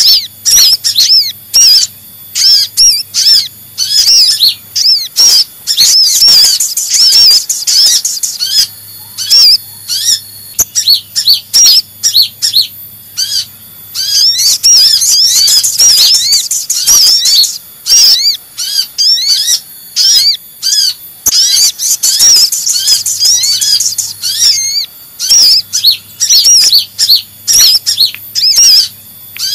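Sunbird lure recording: the busy, agitated chattering of konin (kolibri ninja) mixed with sogon calls. It is a dense, unbroken stream of rapid high chirps and trills, several birds overlapping, with a faint low hum under it.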